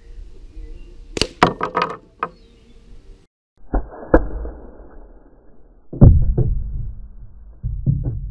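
Slingshot shot striking an ice popsicle set on a cardboard tube: a cluster of sharp cracking clicks about a second in, then after a short break duller knocks, with the loudest heavy hit about six seconds in as the ice is smashed and the tube is knocked down onto the wooden table.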